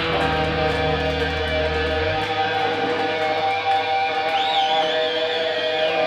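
Amplified electric guitars ringing out held chords in a live hardcore punk set, over a low bass note that cuts off about two seconds in. A high wavering tone comes in after about four seconds and holds to the end.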